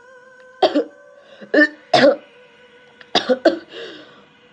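A man coughing about five times in short bunches, the cough of someone suddenly falling ill.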